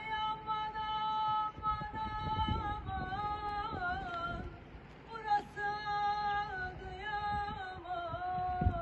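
A woman singing long held high notes in two sustained phrases with small bends in pitch, sung to try out the echo of an arched stone bridge.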